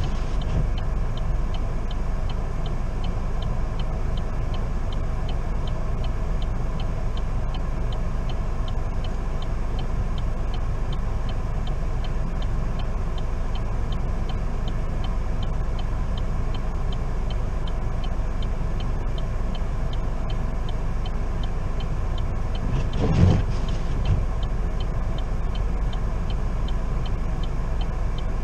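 Steady in-cabin engine and road rumble of a car creeping along. A faint, regular ticking runs throughout, and one short louder thump comes near the end.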